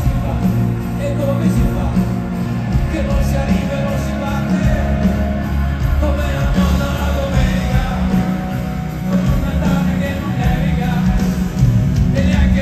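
Live rock band with a man singing, played loud over a stadium sound system and picked up from the crowd, with heavy bass.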